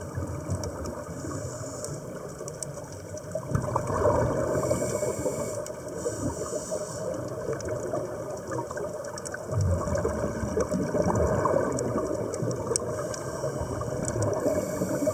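Underwater sound of scuba breathing through a regulator: twice a hissing inhale, with a long low burble of exhaled bubbles between them. Under it runs a constant bubbling, crackling water background with scattered sharp clicks.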